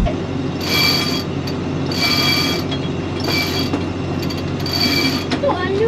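Cockpit winch on a sailing yacht cranked with a winch handle: four ratcheting, whirring turns about a second and a half apart, over a steady low hum.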